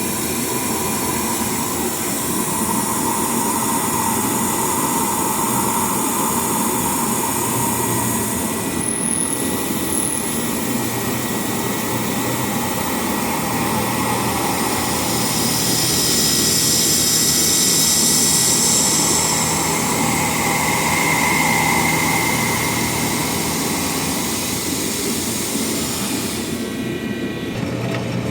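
Milling machine running and cutting the part, a steady dense whir under a thin constant whine, with a high hiss that swells and fades as the cut goes on. The sound changes near the end.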